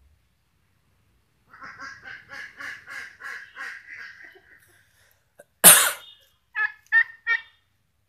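A displaying domestic tom turkey gobbling: a rapid rattling call of about five pulses a second lasting about three seconds. About a second later comes a sudden loud puff of noise, then three short calls in quick succession.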